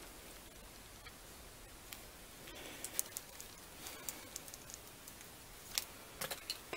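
Faint, scattered clicks and light rustling of items being handled on a workbench, with a few sharper clicks near the end.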